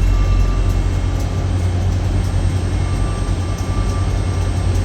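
Class 91-hauled InterCity 225 train pulling into a station platform: a steady low rumble with a faint high whine that comes and goes.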